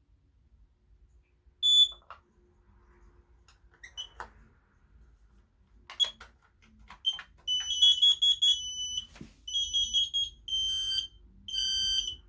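Several smoke alarms sounding together: high-pitched, piercing beeps in overlapping bursts that begin about halfway through and run on almost without a break. Before that comes one short beep and a few sharp clicks.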